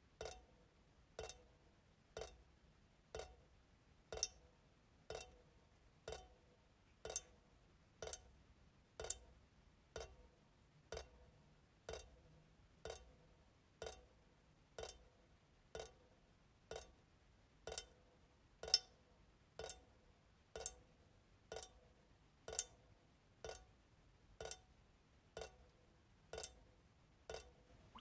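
Kitchen faucet dripping slowly into the sink, one drop about every second in an even rhythm, each drop a small, sharp plink.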